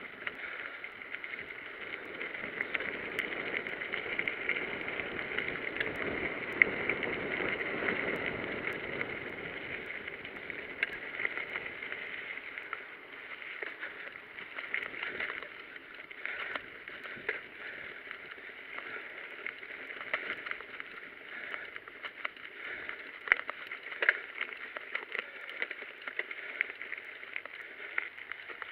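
Mountain bike rolling over a gravel singletrack: steady tyre noise on the loose surface with many small clicks and rattles from stones and bumps. A lower rumble grows between about two and ten seconds in, then eases.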